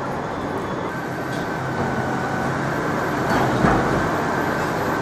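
Steady urban street noise, vehicle traffic or site machinery, with a faint steady whine coming in about a second in and a brief louder swell of something passing around three and a half seconds in.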